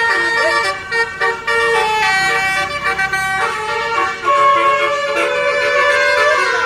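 Bus 'telolet' musical air horn (Basuri multi-note horn) playing a tune: loud, held notes stepping from one pitch to the next, with a long held note in the second half.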